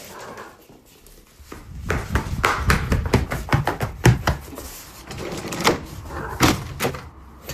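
Irregular knocking and clattering, many quick knocks at an uneven pace, starting about a second and a half in.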